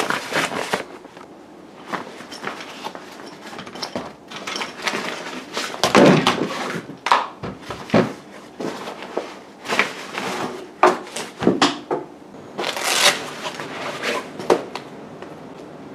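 Camera gear being handled and unpacked from a soft camera bag: rustling of the bag's fabric, with many quick clicks and knocks as the camera body and accessories are lifted out and set down on a wooden table. The loudest handling bursts come about six seconds in and again about thirteen seconds in.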